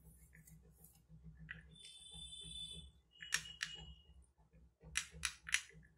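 A spoon stirring a crumbled paneer and onion filling in a bowl, scraping and clinking against the bowl. There is a ringing scrape about two seconds in, two sharp ringing clinks around the middle, and a quick run of clinks near the end.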